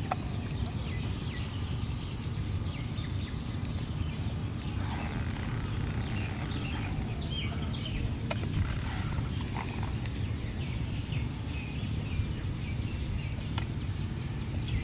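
Outdoor ambience: a steady low rumble with a thin steady high-pitched tone over it, and faint bird chirps scattered throughout, with a short flurry of chirping about seven seconds in.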